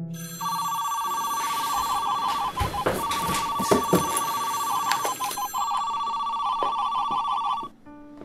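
Phone ringing with a rapid electronic trill, repeating for about seven seconds with short breaks and stopping near the end. A few soft rustles and clicks sound in the middle.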